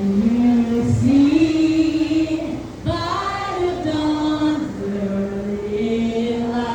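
Voices singing a slow melody in long held notes.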